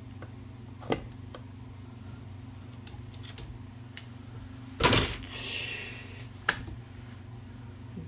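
Metal parts of a partly dismantled Olivetti Linea 98 typewriter being handled: a few light clicks, then a loud clatter about five seconds in with a short rattle after it, and one more sharp click. A steady low hum runs underneath.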